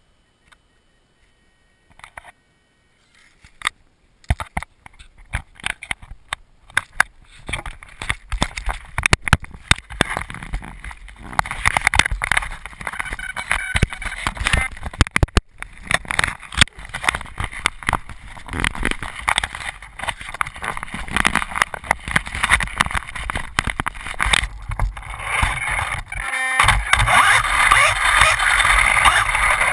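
Losi Mini 8ight 1/16-scale electric RC buggy driving on an indoor floor. Motor and drivetrain noise mix with tyre noise and frequent knocks and bumps. It starts after about three quiet seconds and gets louder near the end.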